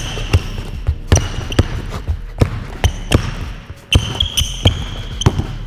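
Basketball dribbled on a wooden hall floor, about two bounces a second with a brief break a little before the end. Short high sneaker squeaks on the floor are heard between the bounces.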